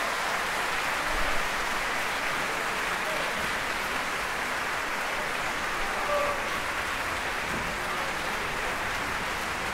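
Concert hall audience applauding steadily.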